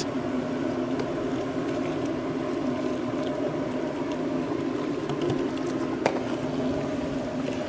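Fermented chili paste and oil frying in a wok, a steady crackling sizzle with one faint click about six seconds in.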